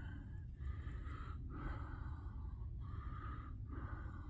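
A person's breathing close to the microphone: a run of soft in-and-out breaths, each lasting about a second with a short pause between, over a low steady rumble.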